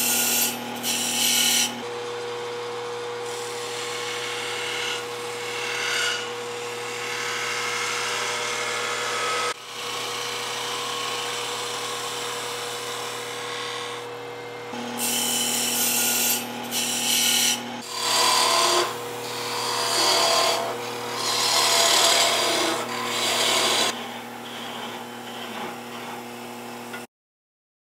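Wood lathe running with a steady motor hum while hand-held turning tools cut the spinning white oak block, giving stretches of loud scraping, shaving noise that start and stop as the tool is pressed into the wood and lifted off. The sound cuts off suddenly near the end.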